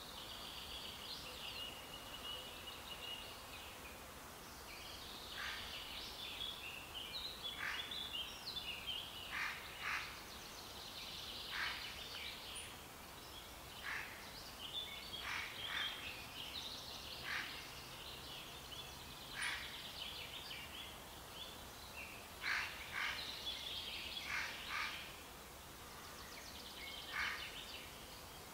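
Songbird song: short chirps, trills and whistled notes repeating every second or so, over a faint steady outdoor hiss.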